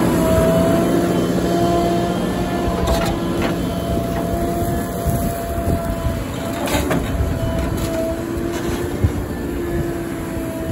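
JCB backhoe loader's diesel engine running under working load, a steady rumble with a held whine over it, and a few knocks about three and seven seconds in.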